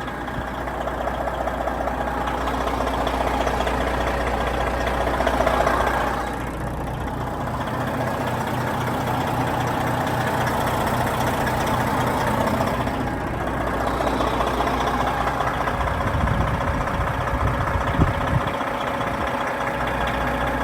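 Detroit Diesel Series 60 engine of a 1998 Peterbilt 378 dump truck idling steadily, with some low rumbling and a single knock near the end.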